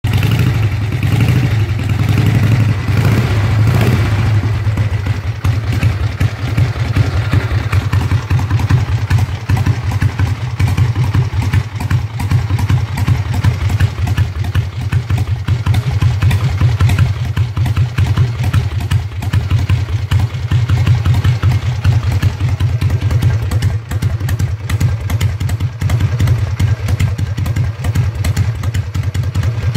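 1979 Harley-Davidson Ironhead Sportster's V-twin engine running at idle, a steady low, pulsing exhaust beat. It is a little louder for the first few seconds, then settles into an even idle.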